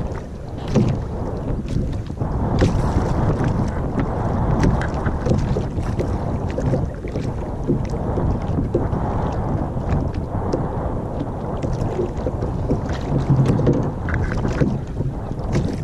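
Wind buffeting the microphone and small waves lapping against a sit-on-top kayak's hull, with scattered light taps and clicks.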